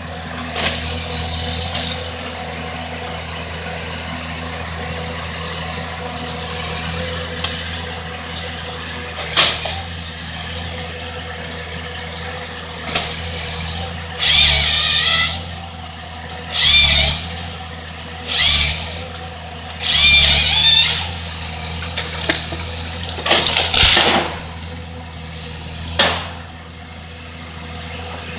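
Timberjack forestry harvester's diesel engine running steadily. It is overlaid in the second half by about five short high-pitched whining bursts from the hydraulics and harvester head as it works a tree, and a few sharp knocks.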